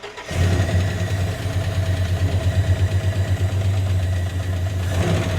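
The 8.3-litre Viper V10 of a 2005 Dodge Ram SRT-10 catching just after a start and then idling with a fast, even pulse, carrying the 'tick tick' noise the truck came in for, which the shop calls a crazy, terrible-sounding noise.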